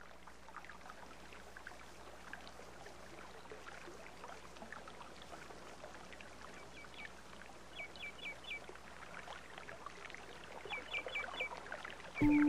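Stream water running steadily, with birds chirping and several quick series of short high notes. Music comes in right at the end.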